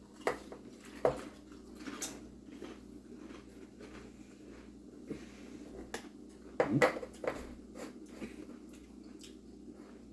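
Potato chips and their bag being handled and eaten: scattered crackles and crunches, with the loudest cluster about seven seconds in.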